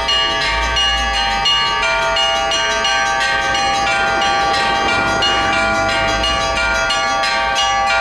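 Orthodox church bells ringing in a belfry: several bells struck in quick succession, their tones overlapping and ringing on.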